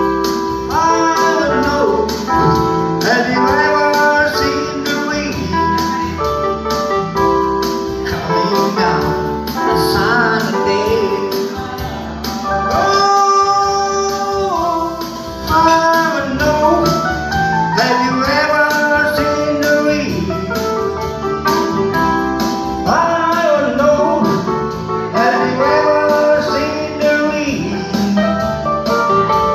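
A man singing into a microphone over guitar accompaniment, as a pop-rock song with a steady beat.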